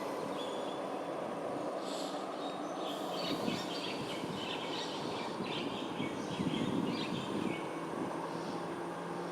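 Small birds chirping in quick, high twittering notes over a steady low rumble of distant urban traffic.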